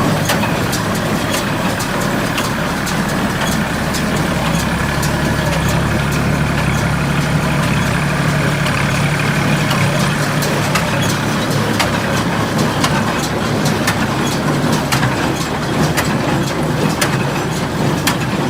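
Tractor engine running steadily, driving an International Harvester 430 square baler on a test run, with many sharp clicks and knocks from the baler's working mechanism.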